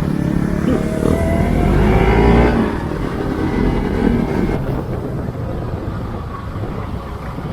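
Motorcycle engine under way, revving up with its pitch rising over the first two or three seconds, then running more steadily and a little quieter.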